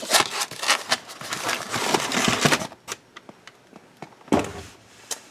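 Packed items being shifted around inside a cardboard box: a run of rustling, scraping and light clicks for the first two and a half seconds, then a single short rustle about four seconds in.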